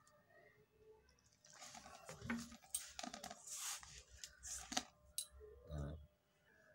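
Faint, irregular squishing and rubbing of hands kneading flour-and-water dough in a stainless steel bowl, with a few small ticks along the way.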